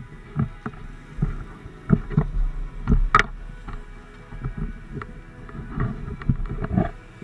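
Irregular thumps, knocks and rubbing of a helmet-mounted action camera being jostled and knocked about as it moves, with one sharper knock about three seconds in.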